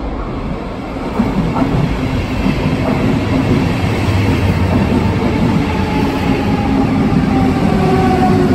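SBB double-deck S-Bahn train, pushed by its Re 450 electric locomotive, running in from the tunnel and past along the platform. The rumble of wheels on rails grows louder throughout, and a faint whine slowly falls in pitch in the second half as the train slows.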